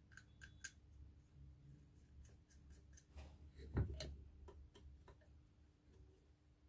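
Faint scattered clicks and light taps of small metal parts and tools being handled, with one louder knock a little before four seconds in.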